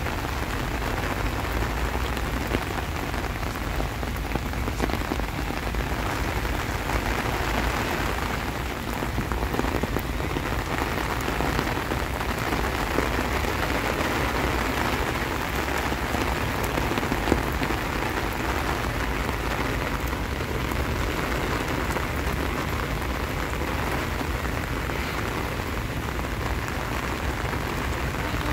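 Steady monsoon rain falling, an even hiss of drops that keeps up without a break.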